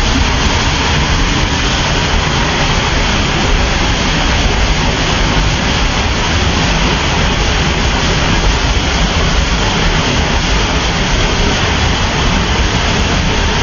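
Waterfall roaring: a loud, steady rushing of falling water with a heavy low rumble, unbroken throughout.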